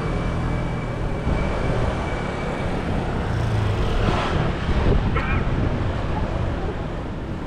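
Street ambience with a steady low rumble and hiss, like traffic noise.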